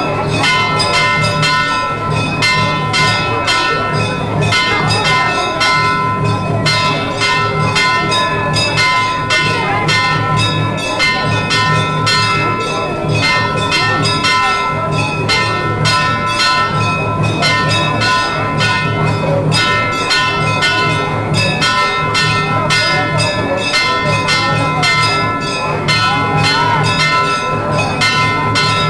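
Temple bells ringing rapidly and without pause, as rung through a Shiva lingam abhishekam, over a low, evenly pulsing beat.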